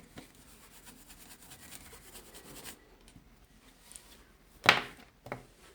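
A brush scrubbing over a charger's circuit board: a faint dry scratching for the first two to three seconds. Near the end comes a sharp knock, the loudest sound, followed by a lighter one.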